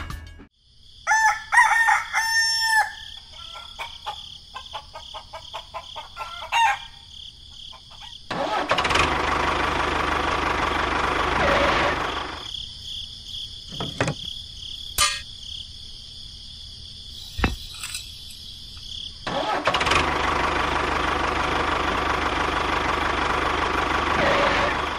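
A rooster crows once near the start. Later a tractor engine runs in two long stretches, with a few sharp clicks in the quieter gap between them.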